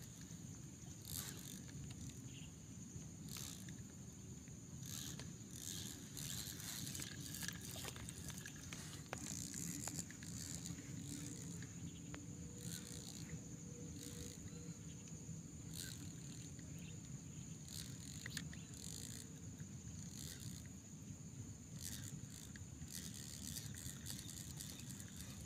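Faint outdoor ambience with a steady high insect drone, over a low rumble. Scattered short clicks and scrapes of handling run through it.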